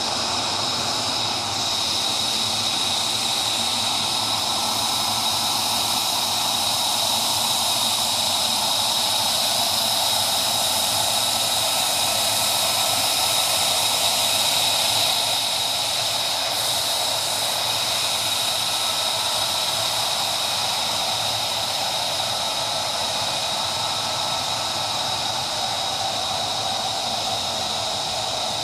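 F-35I Adir fighter jet engine running with a steady high-pitched whine over a hiss.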